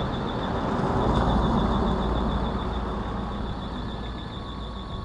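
A motor vehicle passing, its engine rumble and road noise swelling about a second in and then slowly fading.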